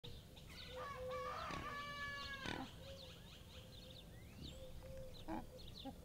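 A rooster crowing once, a long call about a second in, while small birds chirp on and off around it.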